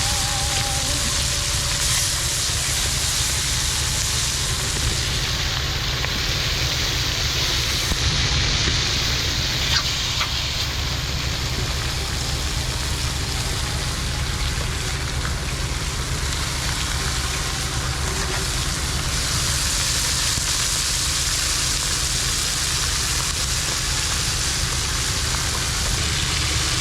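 Firewood cooking stove burning with food sizzling in the pan: a steady hiss and crackle over a constant low rumble.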